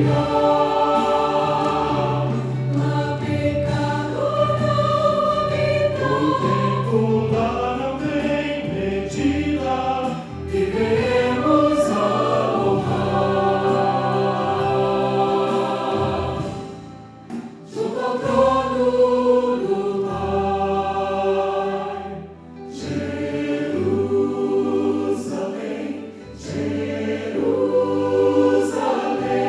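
Mixed choir of men and women singing a Portuguese-language gospel song in harmony into microphones, with brief breaks between phrases twice in the second half.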